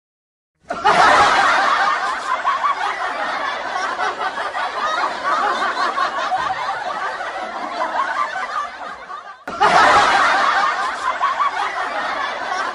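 Crowd laughter, starting suddenly about a second in, cutting off near the end and starting again at once.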